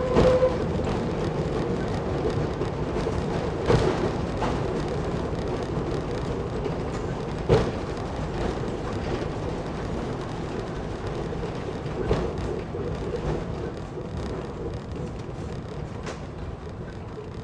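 Nanbu Jukan Railway Kiha 10 railbus running on the track, a single wheel clack over a rail joint about every four seconds, the running noise gradually easing off as it coasts in toward the station.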